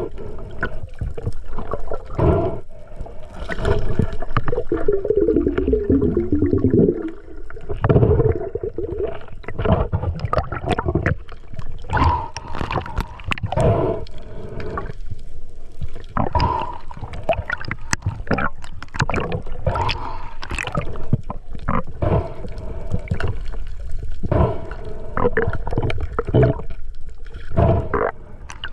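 Water gurgling and sloshing in uneven surges, with scattered knocks.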